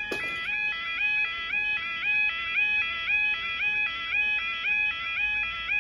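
Level crossing audible warning alarm sounding while the barriers lower, a repeating stepped two-tone yodel about twice a second. A single sharp knock comes right at the start.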